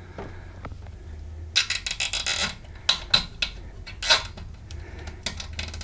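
Plastic cable tie being pulled tight through its ratchet: a quick run of zipping clicks about a second and a half in, lasting about a second, followed by a few separate clicks as it is worked tighter.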